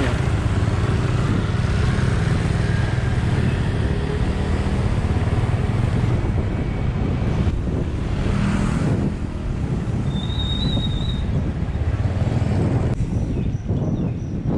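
Wind rumbling on the microphone of a moving bicycle, over road traffic noise. A brief high whistle sounds about ten seconds in.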